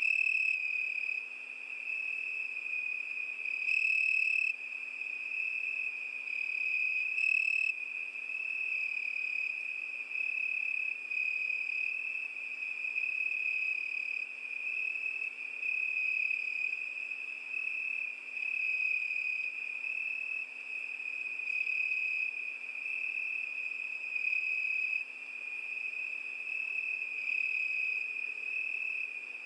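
Crickets chirping in a continuous high-pitched trill that pulses gently, with a couple of louder chirps in the first eight seconds.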